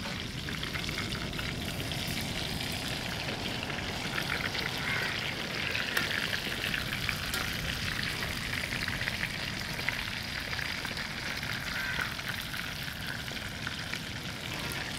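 Crisp-coated chicken pieces deep-frying in hot oil in a wok, a steady sizzle full of small crackles.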